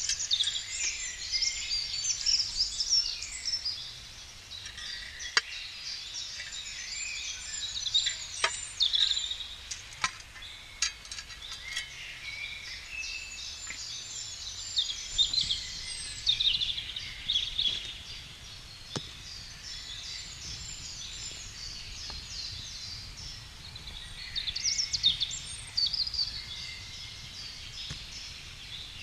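Songbirds singing in repeated phrases of rapid high chirping notes, a few seconds each with short pauses between, over a low outdoor background. A few sharp single cracks stand out now and then.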